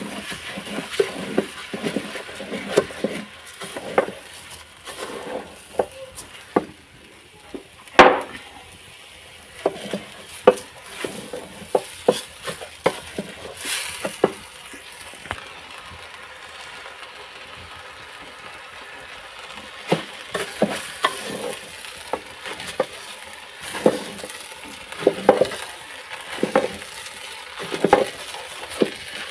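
A wooden cooking stick scrapes and knocks against a metal pot as rice with carrots is stirred, in irregular strokes over a light sizzle from the pot. The loudest knock comes about eight seconds in, and there is a short lull in the stirring around the middle.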